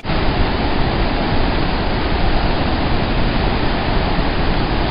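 Loud, steady rush of the Hukou Waterfall on the Yellow River: a large volume of water pouring over the falls.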